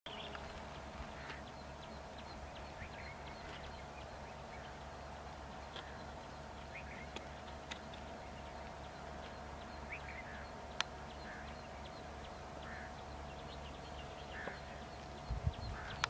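Small birds chirping in short, scattered calls over a steady hum, with a sharp click about eleven seconds in and a few low bumps near the end.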